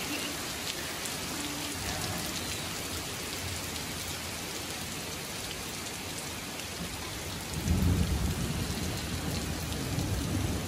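Heavy rain pouring steadily onto a street and wet ground, a dense even hiss. About seven and a half seconds in, a low rumble of thunder rolls in over it and stays on.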